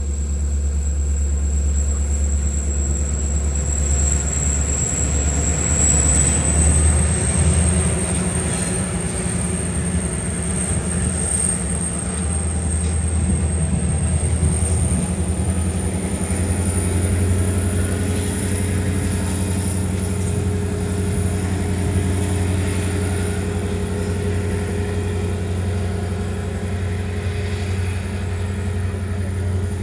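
Diesel locomotive engine running with a steady low drone, under a thin high whine that rises slightly in pitch about six seconds in.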